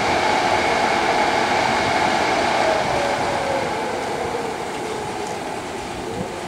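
ChS4 electric locomotive standing at the train with its onboard machinery running: a steady, even hum that eases a little toward the end.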